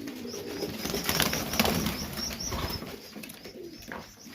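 Serbian highflyer pigeons flapping their wings, with a flurry of wingbeats loudest about a second and a half in.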